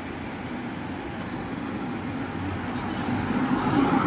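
City street traffic: a steady hum of cars on the road, growing louder near the end as a car approaches.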